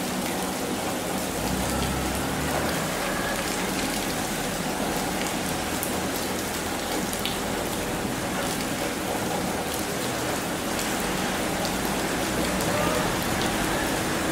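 Steady rain falling: an even hiss with a few scattered small ticks of drops.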